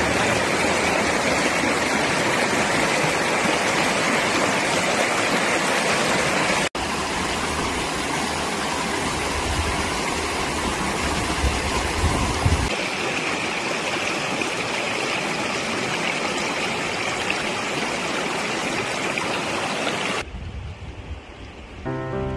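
Shallow river water rushing and splashing over rocks in a steady rush. The sound changes abruptly at two cuts, about a third of the way in and about halfway. Near the end it falls to a much softer background, and music comes in at the very close.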